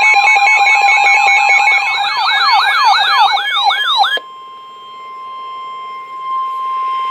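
A pile-up of electronic alarm sounds: sirens sweeping up and down, a fast pulsing alarm and steady high tones, that cuts off abruptly about four seconds in. A single steady alert tone of about 1 kHz, like a weather-radio warning alarm tone, follows and swells slightly in loudness near the end.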